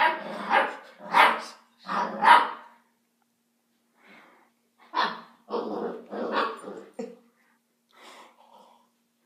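Basset Hound puppy barking at play: three loud barks in quick succession, a pause, then another run of barks about five seconds in, with a couple of fainter ones near the end.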